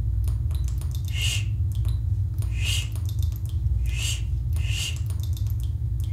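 Four short breathy hisses, voiced for a barn owl puppet, spaced about a second apart over a steady low rumble.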